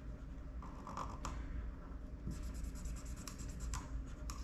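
Colouring in a square on a paper chart: a drawing tip scratches back and forth over the paper in irregular strokes.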